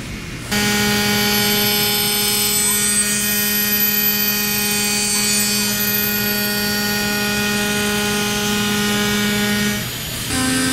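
CNC crankshaft machining centre running as it cuts a steel crankshaft: a steady, loud mechanical hum with a high whine above it. It starts about half a second in and drops out near the end.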